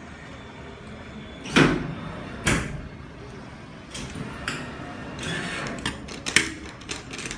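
Claw machine cabinet knocking twice, loudly, about a second apart, then a run of lighter clicks and rattles.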